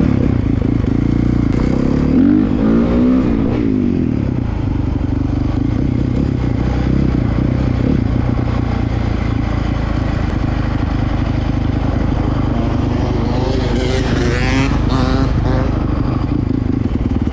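Dirt bike engine running steadily under way, revving up and down twice: about two seconds in and again near the end.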